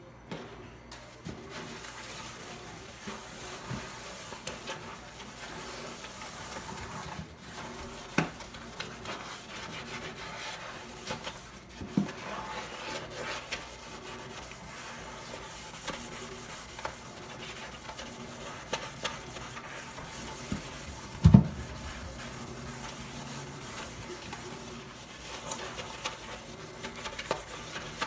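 A soapy sponge scrubbing a stainless steel sink basin: steady wet rubbing and swishing, with scattered small knocks and one loud low thump about three quarters of the way through.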